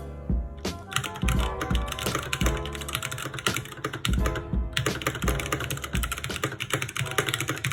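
Fast typing on a Keychron K6 mechanical keyboard with Gateron Brown switches: a dense clatter of key presses starting about a second in, over a music beat.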